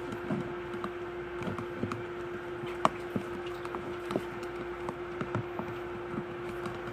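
A plastic utensil stirs glue and water in a container, making irregular light taps and clicks, the sharpest just under three seconds in. A steady hum runs underneath.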